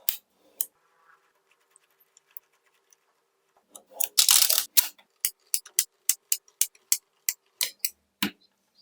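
Small magnetic balls clicking and snapping together. A few scattered clicks come first, then a dense rattling cluster about four seconds in, then a quick run of sharp clicks about four a second.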